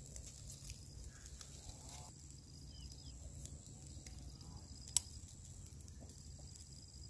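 Faint outdoor ambience: insects calling in steady high trills over a low rumble, with scattered small clicks and one sharp click about five seconds in.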